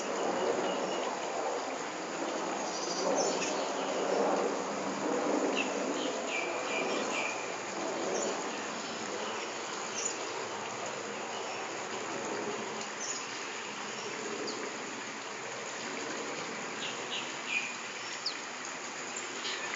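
Steady outdoor background noise with short, high chirps scattered through it every few seconds.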